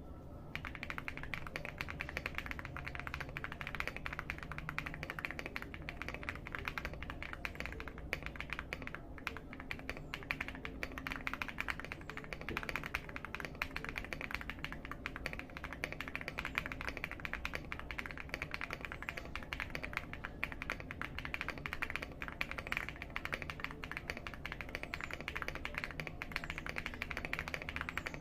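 Fast, continuous typing on a Leobog Hi75 mechanical keyboard with Akko V3 Cream Yellow Pro linear switches: a dense run of key presses and bottoming-out clacks that starts right at the beginning.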